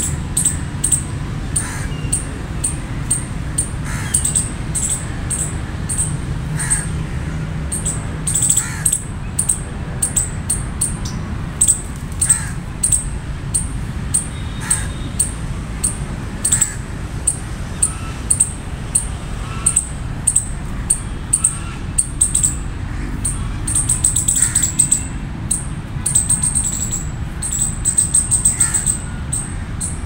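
High, sharp chirps repeated throughout, sometimes in quick runs, with a harsh crow-like caw every few seconds, over a steady low rumble.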